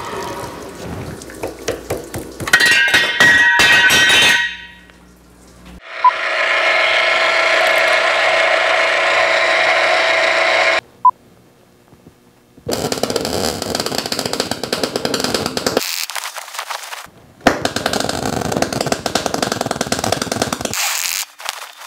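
A run of metal-shop machine sounds in turn. First a cold saw cutting steel square tubing for about four seconds. Then a drill press drilling steel flat bar with a steady whir for about five seconds, and finally MIG welding crackling in two stretches a few seconds each.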